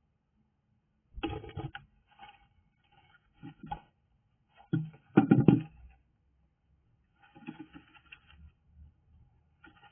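Irregular bursts of scratching, scraping and tapping from a bird working nest material during nest building. The loudest burst comes about five seconds in.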